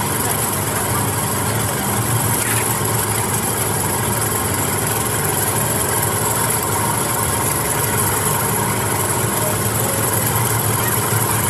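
Cotton candy machine running, its spinning head giving a steady mechanical hum.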